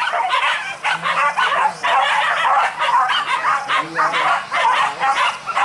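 Pack of hunting dogs barking and yelping without pause, several high voices overlapping in quick bursts.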